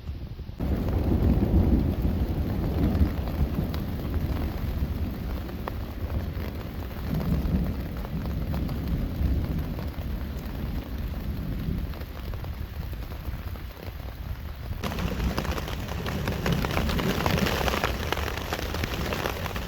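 Rain falling steadily during a thunderstorm, with a deep rumble of thunder underneath. About fifteen seconds in, the rain turns to a brighter, heavier hiss.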